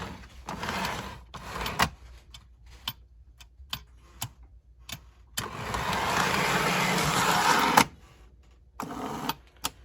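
Lionel toy train switcher locomotive's electric motor and wheels running on the track in spurts, powered by 6-volt batteries, with scattered clicks in between. The longest run comes a little past halfway.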